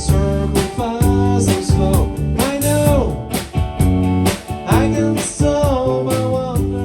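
Rock music: guitar over a steady drum beat, with a melody line that bends in pitch.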